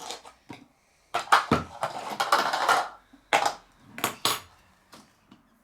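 Plastic packaging and slime containers being handled and opened: a crinkling rustle about a second in, then several sharp clacks of hard plastic.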